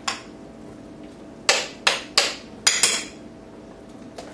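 A metal spoon knocking against a glass mixing bowl and a plastic tub while salsa is spooned from the tub into the bowl. There is one sharp knock at the start, then five quick sharp knocks in the middle.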